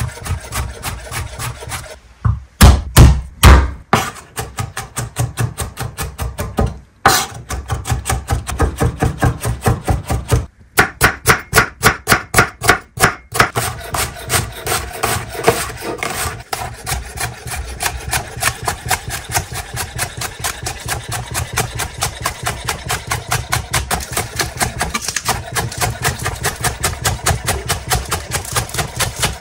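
Food being worked on a wooden board with rapid, even strokes, about four or five a second, with a few louder knocks about two to four seconds in.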